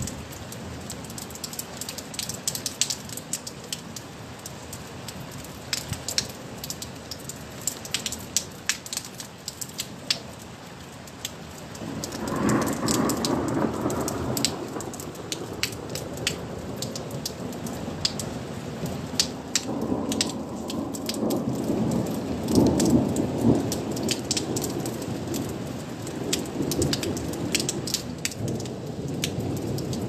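Thunderstorm: rain falling, with many sharp drops ticking on a surface close by, and thunder rumbling twice, a long roll starting about twelve seconds in and another from about twenty seconds in that builds near the end.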